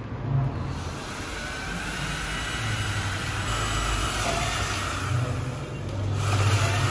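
Cordless drill running, its bit boring into a grey metal or plastic pipe frame, with a steady motor hum that grows louder toward the end.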